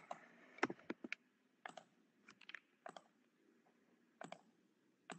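Faint, irregular computer keyboard clicks: about a dozen separate keystrokes in small clusters.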